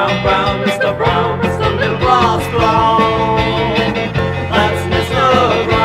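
Rock band recording playing: drums, bass and a lead melody line that slides up and down in pitch.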